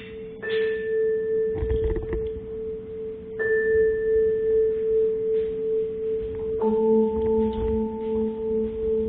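Bell-like metal percussion ringing in long sustained tones over one steady held tone. A new, higher tone is struck about half a second in and again about three and a half seconds in, and a lower pair of tones enters near seven seconds. The sound swells and fades in a slow, wavering pulse.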